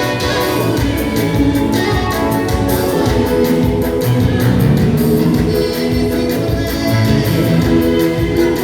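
Choir singing gospel music over instrumental accompaniment with a steady beat.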